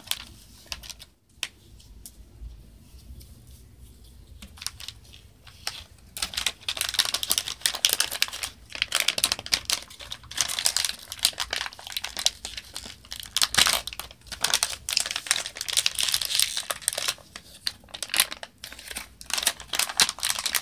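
Shiny plastic toy packaging crinkling and crackling as it is handled and torn open by hand. It is fairly quiet at first, then dense crackling from about six seconds in.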